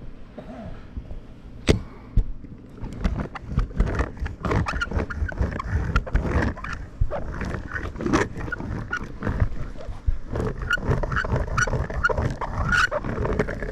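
A hand roller squeaking and squealing irregularly as it is worked back and forth. The roofers take the squeak for worn-out bearings that need WD-40.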